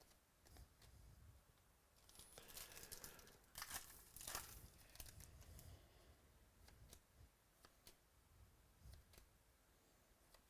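Faint tearing and crinkling of a trading-card pack wrapper being opened, loudest around four seconds in, followed by sparse light clicks and rustles.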